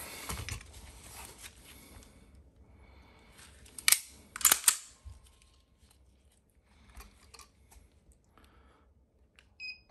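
Two sharp metallic clicks about half a second apart in the middle, then a few fainter clicks: a SIG P229 DAK pistol's trigger mechanism being worked and reset between trigger-pull gauge readings. A short high beep comes near the end.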